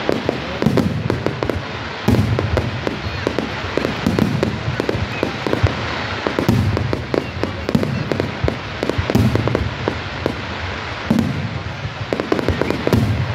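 Fireworks display: a dense run of bangs and crackling from bursting shells, with deeper booms every couple of seconds.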